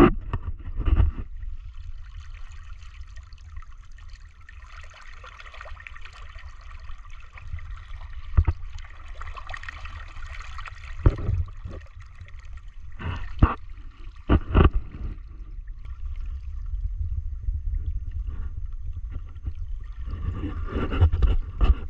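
Fast tidal current rushing and gurgling past a sit-on-top kayak's hull and around a foot dipped in the water, with several sharp knocks scattered through.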